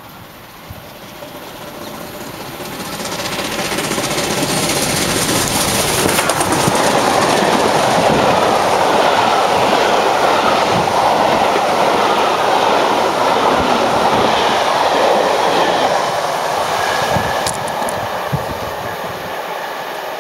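Bulleid Battle of Britain class steam locomotive 34067 'Tangmere' and its train of coaches passing through a station. The sound builds as the train approaches, is loudest for about ten seconds while the coaches run past, then eases as it draws away near the end.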